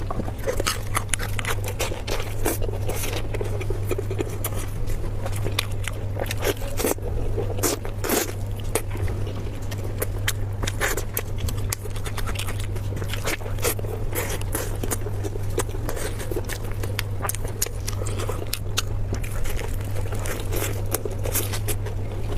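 Close-miked mukbang eating sounds: a person biting and chewing food with a dense run of irregular wet clicks, smacks and crunches, over a steady low hum.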